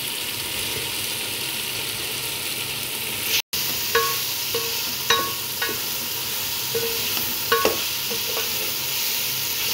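Tomato-onion masala with boiled beef pieces sizzling in an aluminium pot while being stirred with a wooden spoon. The wooden spoon scrapes and knocks against the pot several times in the second part. There is a brief break in the sound about a third of the way in.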